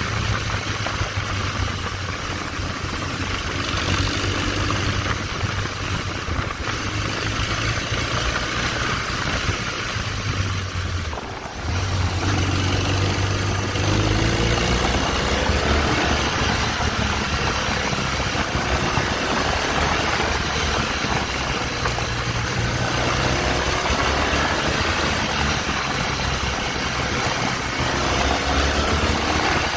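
BMW R1200GS boxer-twin engine running steadily while the motorcycle is ridden, under heavy rushing noise. About 11 seconds in there is a short break, and after it the engine pitch shifts up and down with changes in speed.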